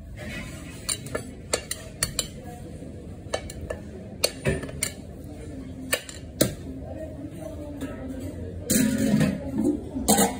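A metal serving spoon scrapes and clinks against a large metal pan of rice pilaf and a plate, giving a series of short, sharp clinks at uneven intervals.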